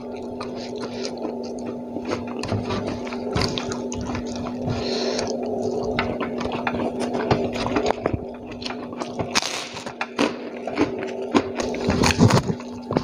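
Wet chewing and lip-smacking from a person eating rice and fried food by hand, with many short clicks that grow louder near the end, over a steady low hum.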